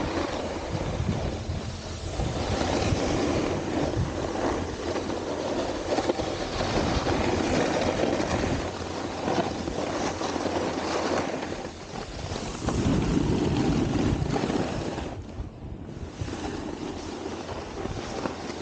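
Snowboard scraping and chattering over icy, hard-packed snow on a continuous run, a rushing noise that swells and eases with the turns. Wind buffets the microphone with a low rumble throughout. The scraping drops away briefly about fifteen seconds in.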